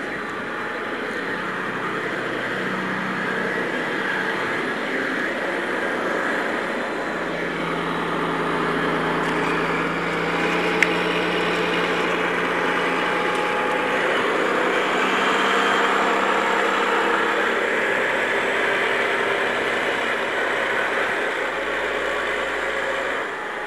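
Massey Ferguson tractor's diesel engine running steadily while pulling a loaded silage trailer, growing gradually louder towards the middle and easing off later. There is one sharp click about halfway through.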